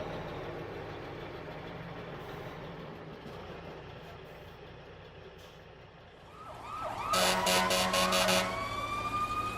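A dump truck's engine runs steadily and fades away. About seven seconds in, a fire engine's warning sounds take over: a loud, horn-like blast, then a siren wail slowly rising in pitch.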